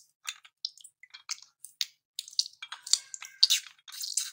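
Strands of hot falooda batter dropping into a bowl of iced water: irregular small wet drips and plops.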